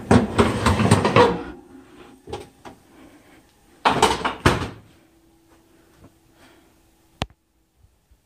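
Metal oven rack with a cast iron skillet on it pushed into the oven, rattling, then the oven door shut with two clunks about four seconds in. A single sharp click near the end.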